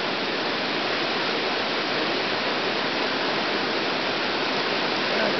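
Steady rush of flowing river water, an even hiss that holds level throughout.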